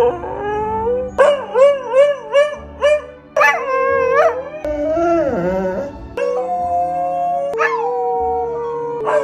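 Corgi howling in a series of wavering, pitched cries: a quick warbling run in the first few seconds, then longer drawn-out howls.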